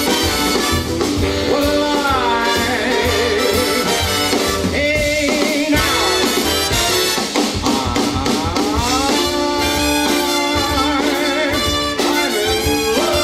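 Swing big band playing live, with trumpets, trombones and saxophones over drums, and a man singing into a microphone with it.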